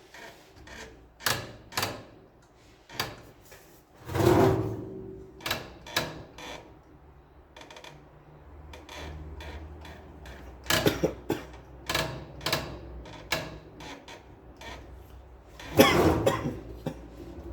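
Irregular clicks, knocks and scrapes of parts of an HP LaserJet P1102 laser printer being handled and fitted during a repair. A low steady hum comes in about halfway through.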